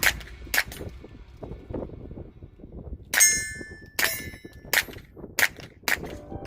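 A string of shots with metal targets clanging as they are struck, about seven sharp hits in all. The strike about three seconds in leaves a ringing steel tone.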